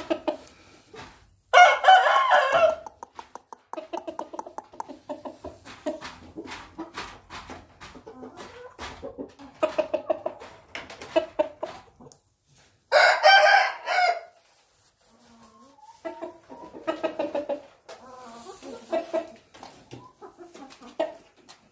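Chickens clucking in quick, repeated runs, broken twice by a loud crow of just over a second, one about a second and a half in and one about 13 seconds in.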